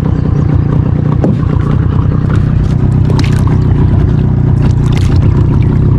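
Small boat's motor running steadily, a low drone, with a few light knocks over it.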